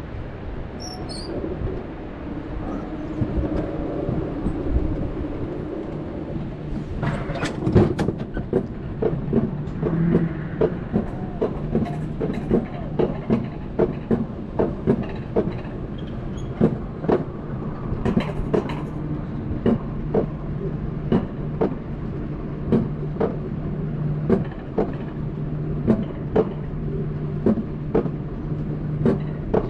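Alpine mountain coaster sled rolling down its tubular steel track: steady wheel rumble with a low hum, and from about seven seconds in a regular clack about once a second as the wheels cross the track joints.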